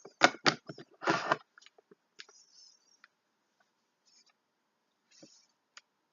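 Slime being poked with fingers: three quick pops in the first second, a longer squelch just after it, then a few faint scattered clicks.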